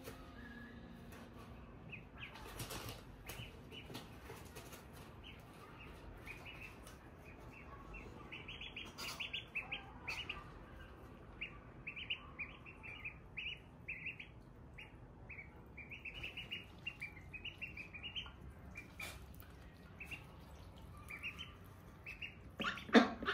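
Domestic ducklings peeping: many short, high peeps in quick runs, with a few sharp clicks. Near the end comes one louder, lower-pitched sound.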